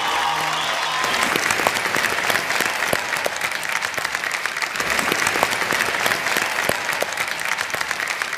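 Applause: many hands clapping in a dense, steady patter that fills in fully about a second in.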